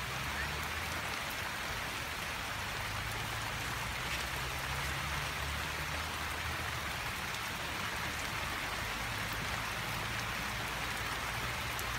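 Steady rain falling on wet ground and vegetation: an even hiss with occasional faint drop ticks and a low rumble underneath.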